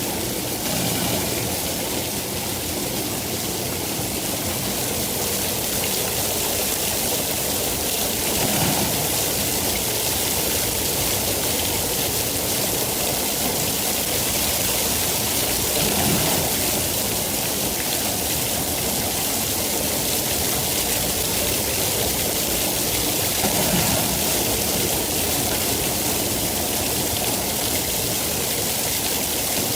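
Steady rain falling, an even hiss of drops, with brief low swells three times.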